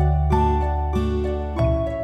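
Background music: a run of plucked notes over a held low bass.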